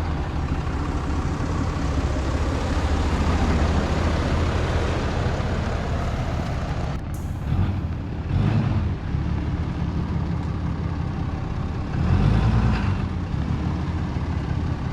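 Steady low rumble of a motor vehicle under way, engine and road noise, swelling briefly twice.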